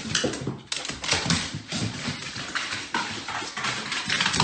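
A dog vocalizing in short, irregular sounds, mixed with clicks and small knocks.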